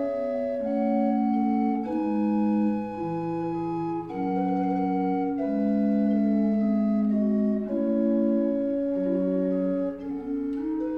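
1728 Pedro de Echevarría chamber organ played on its Tapadillo 4' stopped-flute stop in both hands: several voices of held notes move slowly against each other, each note lasting about one to two seconds.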